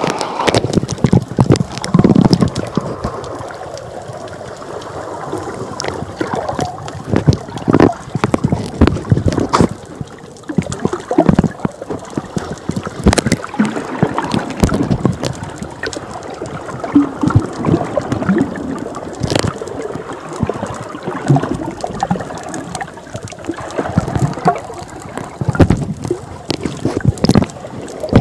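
Seawater gurgling and sloshing around a camera held at and just under the surface, with frequent irregular splashes and knocks.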